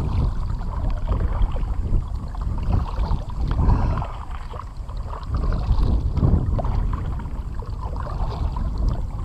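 Double-bladed kayak paddle stroking through the water, the blades dipping and splashing in a slow rhythm, over a low rumble of wind on the microphone.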